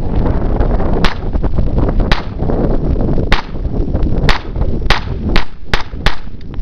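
Ruger Mark I .22 semi-automatic pistol firing eight shots. They come about a second apart at first, then quicken to two or three a second near the end.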